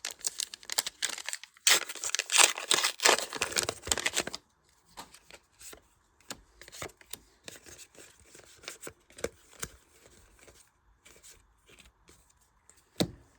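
Trading card booster pack wrapper being torn open and crinkled for about the first four seconds, then quieter ticks and rustles of cards being handled, with one sharp click near the end.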